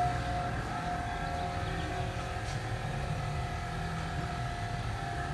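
BMW X5 (F15) air-suspension compressor running steadily, a low hum with a thin steady tone over it, switched on through a diagnostic tool to fill the rear air springs with pressure so leaks can be found.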